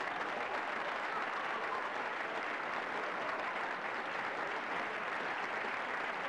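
Applause, steady and even.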